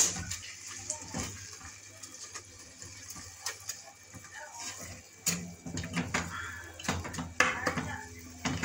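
Wooden spatula stirring spinach in an aluminium pot, with light, irregular knocks and scrapes against the pot's sides and bottom, over a steady low hum.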